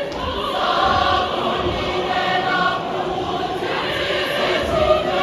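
A large church choir singing a choral piece in full voice, many voices holding chords together.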